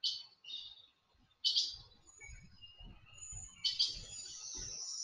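Birds chirping: a few short high chirps, then a longer, steady high trill starting just past the middle.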